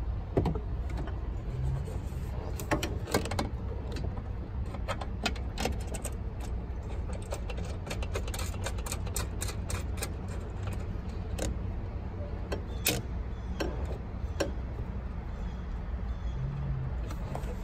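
Scattered small metallic clicks and rattles of a bolt being threaded by hand through the frame rail into a catch-can mounting bracket, over a steady low rumble.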